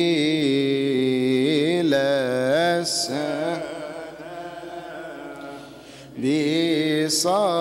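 A man chanting a Coptic liturgical hymn, drawing out long notes that waver up and down. The voice drops to a softer held note for a couple of seconds past the middle, then picks up loudly again about six seconds in.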